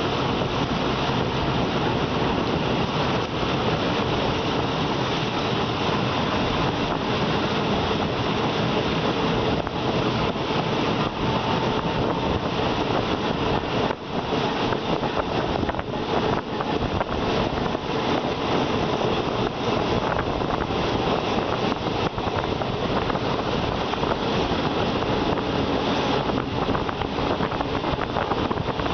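Passenger train running along the track, heard from an open window: a steady rush of wind on the microphone mixed with wheel and rail noise, with a brief dip about halfway through.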